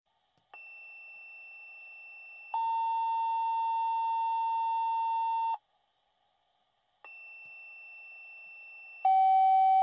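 Electronic beep tones: a faint high tone for about two seconds, then a loud steady beep for about three seconds; after a silent gap the faint tone returns and a second, slightly lower loud beep starts near the end.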